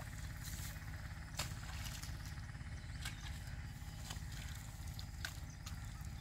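Open paddy-field ambience: a steady low rumble under a faint animal chirring, with about four short wet splashes and squelches as bundles of rice seedlings are pushed by hand into the flooded mud.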